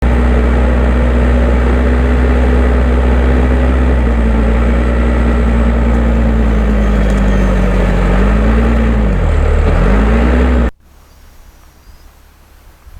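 Diesel engine of a Case 580M backhoe loader running loud and steady, its speed sagging twice and picking back up near the end as it works hard ground. The sound cuts off suddenly about ten and a half seconds in, leaving only faint background.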